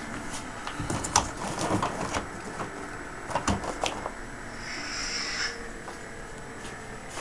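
Plastic wrapping crinkling and crackling as it is handled, in sharp clicky clusters about a second in and again about three and a half seconds in.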